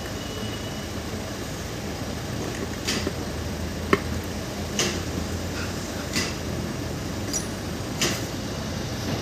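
Sharp metal clicks and knocks, about six spread over several seconds, one of them ringing briefly, as a vehicle starter motor's armature and housing are fitted together by hand. A steady low hum runs underneath.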